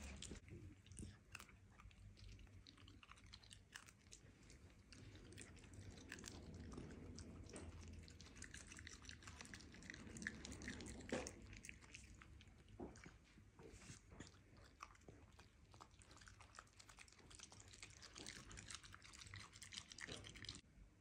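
Miniature dachshund chewing leafy greens: faint, wet crunching with many small crisp clicks of teeth on leaves, a few louder crunches about halfway through.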